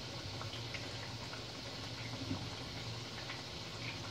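Medu vadas frying in hot oil in a steel kadhai: a steady sizzle with small scattered crackles, over a low steady hum.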